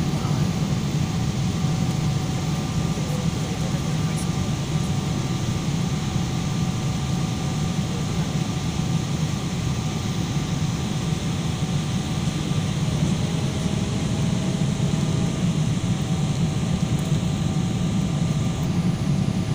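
Steady cabin drone inside a Boeing 777 airliner in flight: engine and airflow noise with a heavy low hum and a faint steady whine.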